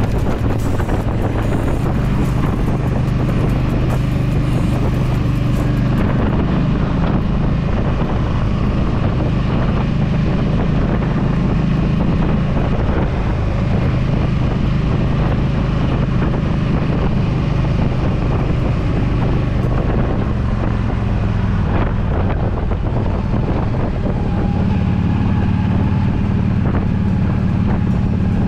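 Yamaha V Star 1300 Deluxe's V-twin engine running under way while riding, its engine note shifting a few times, with wind buffeting the microphone.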